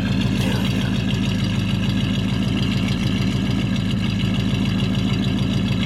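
1942 Cadillac Series 62's 346 cubic inch flathead V8 idling smoothly and steadily, heard right at the tailpipe.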